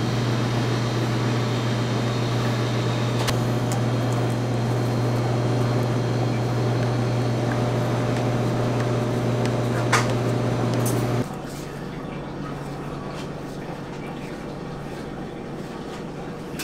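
A steady low machine hum that cuts off abruptly about eleven seconds in, leaving quieter room noise, with a couple of light clicks over it.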